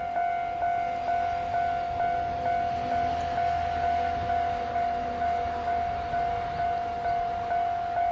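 Railway level-crossing warning bell ringing steadily at about two strikes a second, signalling an approaching train. Under it, a faint low rumble from a DF200 diesel locomotive hauling a freight train in the distance.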